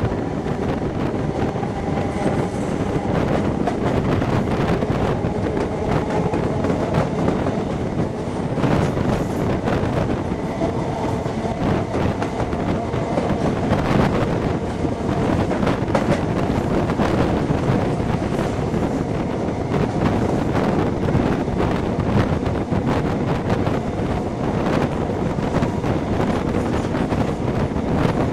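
A class 43 HST (InterCity 125) train running at speed, heard from an open coach window: a steady rush of wheels on the rails and moving air, broken by irregular clicks from the track. A faint steady hum sits under it in the first half.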